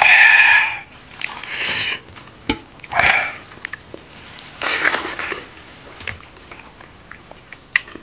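A man eating rice and pork curry by hand, sniffing loudly four times about a second and a half apart. Between the sniffs come small chewing smacks and light clicks of fingers working rice on a metal plate.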